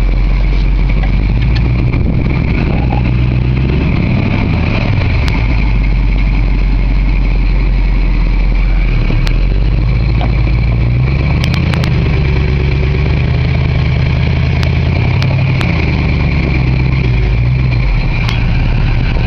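Chrysler 318 V8 engine of a homemade forklift running steadily, its pitch rising and falling as it is revved while moving a heavy car, with a few faint clicks scattered through.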